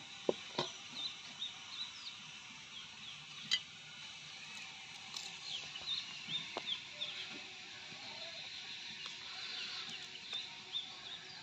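Many short, high chirps from birds, repeated throughout, with a few sharp clinks of a ladle against a stainless steel bowl, the loudest near the start and at about three and a half seconds.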